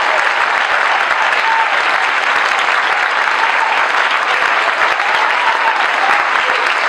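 Audience applause, steady and loud, with a few voices calling out over the clapping.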